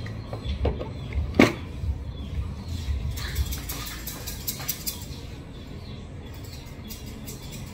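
Barber's scissors snipping hair in quick runs of sharp clicks, with a single louder click shortly before, over a low pulsing beat.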